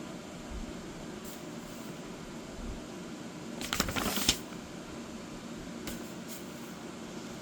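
A coloring-book page being turned: one short papery rustle about halfway through, over a steady fan-like hum.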